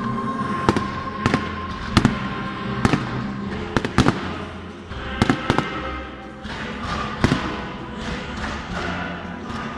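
Aerial firework shells bursting: about ten sharp bangs, roughly one or two a second and some in quick pairs, over music playing.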